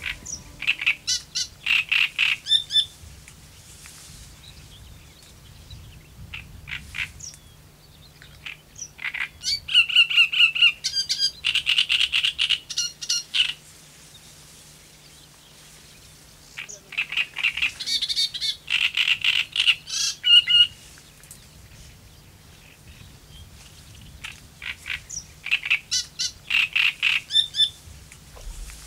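A songbird singing from the reeds in four loud phrases of rapid repeated notes, each a few seconds long, with pauses between them.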